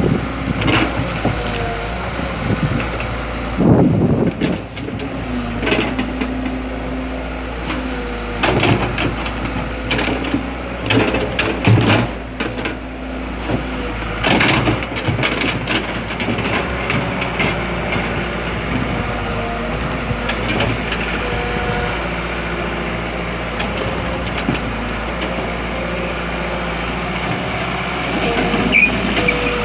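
Diesel earth-moving machinery at work: a steady engine drone that shifts in pitch, with a run of clanks and knocks in the first half.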